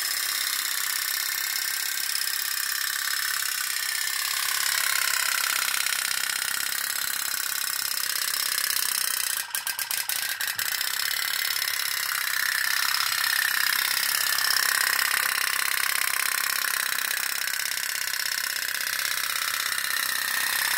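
Candle-heated tin pop-pop boat engine running, a steady fast buzzing putter, with a few brief dropouts about halfway through.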